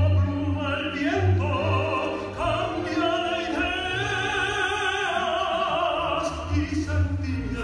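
Operatic singing, a trained voice holding and moving between notes with vibrato, over instrumental accompaniment with a steady low bass line.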